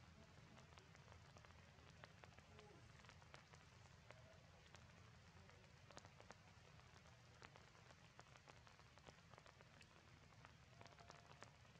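Near silence: a faint low hum with scattered soft ticks and clicks.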